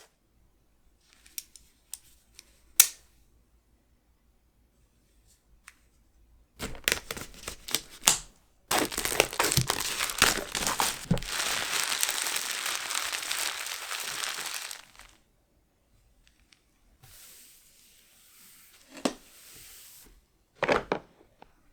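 Packaging being handled, crinkled and torn by hand: a few sharp clicks, then a long stretch of crinkling and tearing for about six seconds in the middle, and softer rustling with a couple of knocks near the end.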